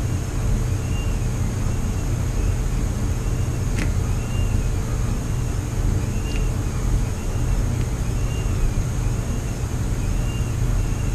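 A steady low machine hum with a faint rising-and-falling chirp repeating a little more than once a second, and two or three faint clicks.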